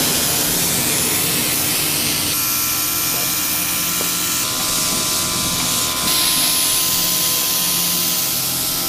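Sprayer of edible metallic food paint hissing steadily as it sprays paint onto fondant, with a faint whine under the hiss.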